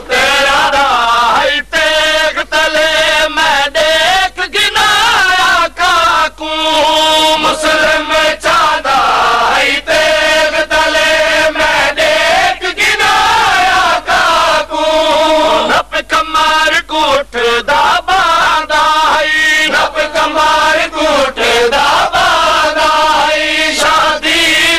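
Male voices chanting a Saraiki noha, a Shia mourning lament, in a drawn-out, wavering sung melody.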